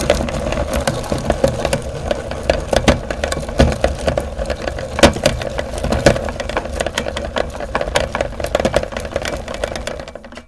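Electric meat grinder running steadily, with frequent sharp cracks and rattles of hard material being crushed in it. The motor stops abruptly near the end.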